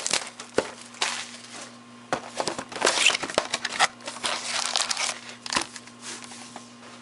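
Foil-wrapped 2012 Certified football card packs crinkling as they are handled and lifted out of their cardboard hobby box, in irregular rustling bursts with a couple of light knocks against the table.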